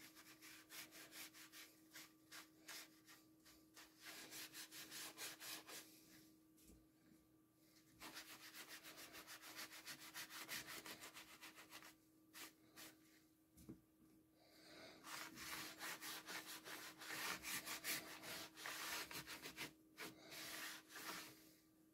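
A yellow sponge rubbed quickly back and forth over wooden slats, a rapid scrubbing in several bouts separated by short pauses.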